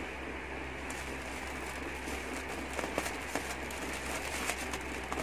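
Clear plastic AirPlus air-pillow packing cushion crinkling as it is handled, a few soft crackles over a steady background hum.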